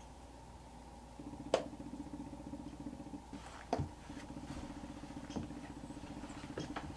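Hands, knees and boots knocking now and then on wooden porch decking as a person crawls along it, with a few sharp knocks, the loudest about a second and a half in. Under it, a steady motor-like hum.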